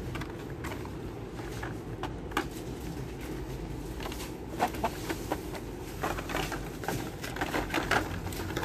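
Plastic blister packs of die-cast toy cars being flipped through and knocked together on wire display hooks: a scatter of light plastic clicks and rattles, busier and louder in the second half.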